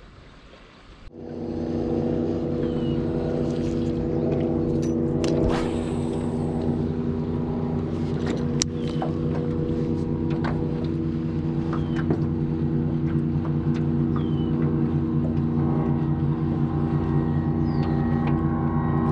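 Boat motor running at a steady pitch, coming in suddenly about a second in, with occasional small clicks and knocks from handling the fishing reel.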